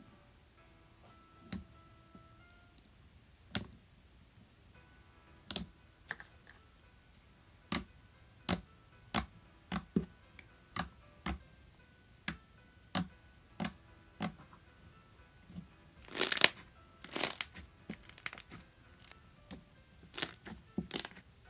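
Slime being pressed and squeezed by hand, making sharp clicks and pops at irregular intervals, with a louder, denser run of crackly pops about three-quarters of the way through. Soft background music plays underneath.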